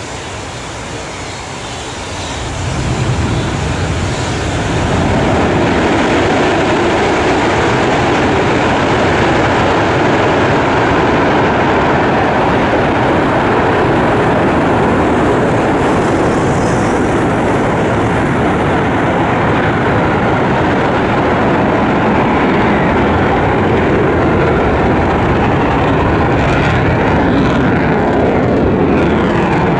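Eurofighter Typhoon's twin EJ200 turbofan engines powering up for takeoff. The level climbs about two to five seconds in, then holds as a loud, steady jet noise with the afterburners lit through the takeoff run and climb-out.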